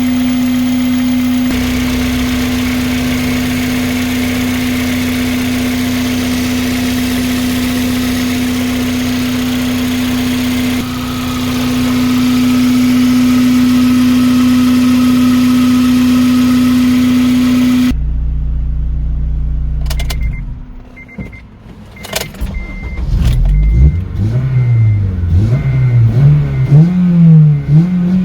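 Acura RSX Type-S four-cylinder engine running with its freshly fitted exhaust header: a long steady high drone, which cuts off suddenly about two-thirds of the way through. After a low rumble and a few clicks, the engine is revved again and again, its pitch rising and falling with each blip.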